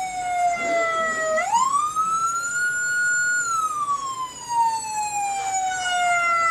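Police car siren on a slow wail. Its pitch slides down, sweeps quickly back up about a second and a half in, holds briefly, then falls slowly again.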